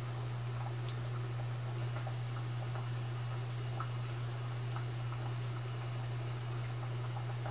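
Pot of black glutinous rice boiling hard, with small irregular bubbling pops over a steady low hum.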